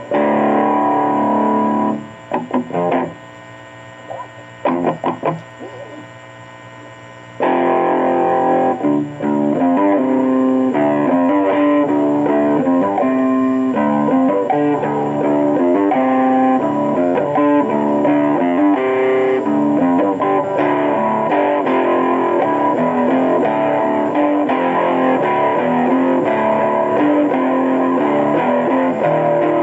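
Electric guitar played through an amplifier: a chord rings for about two seconds, a few short stabs follow, then continuous riffing with changing notes from about seven seconds in. A steady low hum sits underneath and shows in the pauses.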